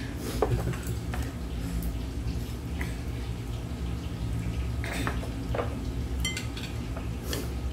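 Chopsticks and metal tongs clinking now and then against bowls and a pot of noodles at a table. About six seconds in, one clink of metal rings briefly. A steady low hum runs underneath.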